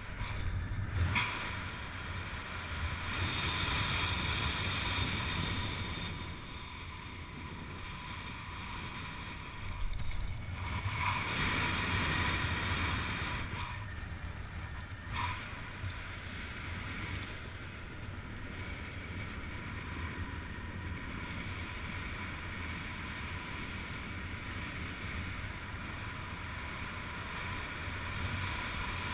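Wind rushing over a helmet camera's microphone during a parachute descent under canopy, a steady noise with a low rumble that swells louder twice, a few seconds in and again about a third of the way through.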